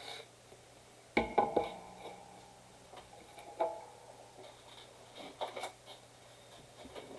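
A few light knocks and clatters of hard objects being handled and set down on a surface. The loudest is a quick group of three about a second in, followed by single knocks a few seconds later.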